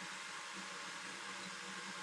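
Faint steady hiss with a low hum underneath and no distinct events: room tone.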